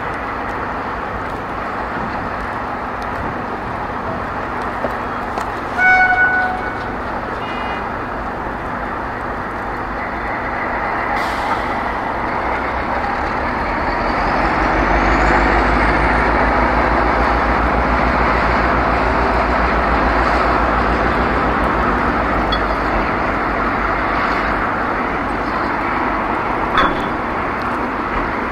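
Dv16 diesel shunting locomotive with its MAN diesel engine running as it moves a string of freight wagons, the engine rumble and rolling wheels growing louder as it passes close, from about halfway through. A short horn toot sounds about six seconds in, and a couple of single clanks come from the wagons.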